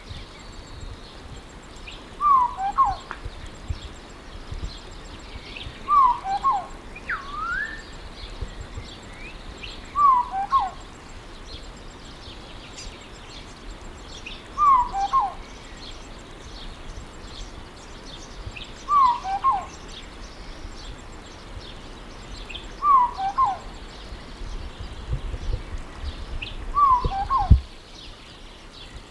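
São Tomé oriole calling: a short, falling two-note phrase repeated seven times, about every four seconds, with faint chirps of other birds in between.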